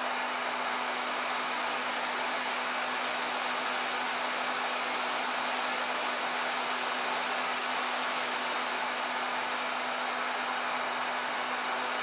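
Electric heat gun running steadily: an even rush of blown air with a constant low motor hum.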